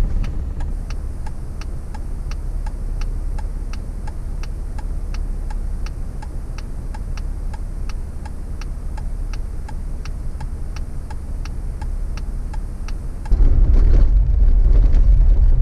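Jeep Wrangler engine idling, heard from inside the cab, with a steady ticking about three times a second. About 13 seconds in, the sound jumps to a louder rumble as the Jeep drives off.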